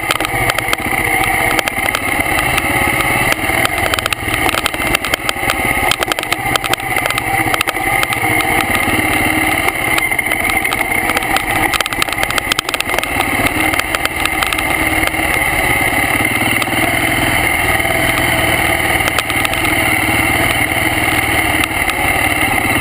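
BMW G650 Xchallenge's single-cylinder engine running steadily while riding a rough dirt track, with constant small knocks and rattles from the bike over the uneven ground.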